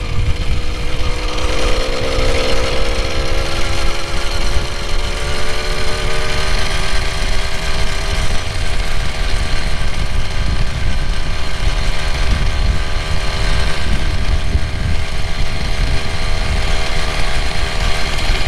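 A motorized bicycle's small two-stroke engine running under way, freshly broken in. Its pitch rises over the first several seconds as it speeds up, then holds steady, over a heavy low rumble.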